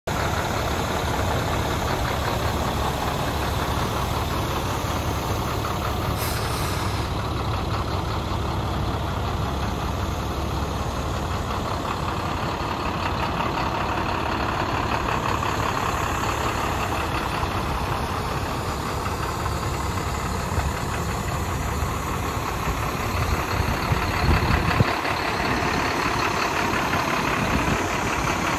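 International 4300 dump truck's MaxForce DT inline-six diesel idling steadily.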